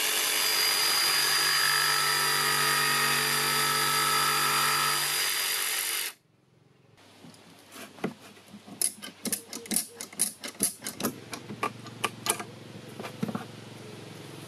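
DeWalt 18V cordless jigsaw running steadily as it cuts a softwood board for about six seconds, then stopping abruptly. After a short gap comes a run of irregular sharp clicks and knocks from handling the board and clamp.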